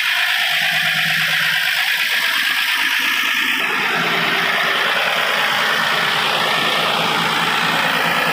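Tata SE1613 truck's diesel engine idling steadily with a fast even chug, growing fuller in the middle range about three and a half seconds in.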